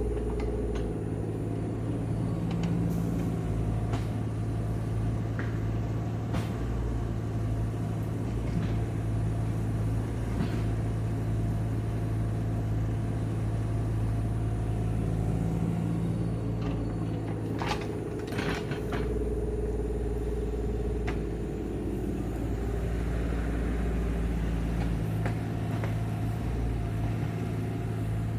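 Tractor engine running steadily under load while it pushes a root rake through roots and topsoil. A few sharp knocks and rattles come from the machine and rake, with a cluster of them about two-thirds of the way through.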